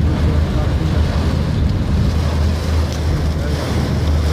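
Steady low rumble of a car driving in heavy rain, heard from inside the cabin: road and engine noise under the hiss of rain on the car, with a few faint ticks.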